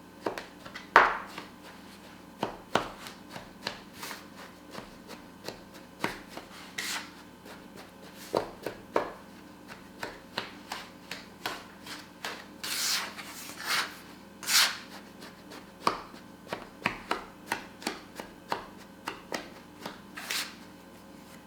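A bench scraper cutting cold butter into a crumbly flour and almond dough: irregular short taps of the blade on the work surface, with a few longer scraping strokes partway through.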